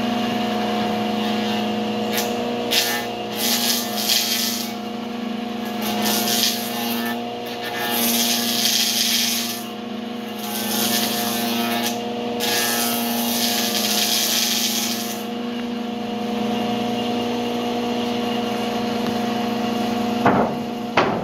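Table saw running with a steady hum, ripping a wooden slab lengthwise in three stretches of loud hissing cutting. Near the end come a couple of sharp knocks as the wood is handled.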